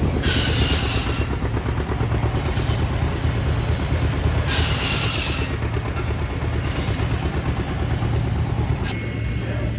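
An old tractor engine runs steadily, belt-driving an antique sawing machine. Four short, high-pitched bursts come about every two seconds as the saw cuts through wood.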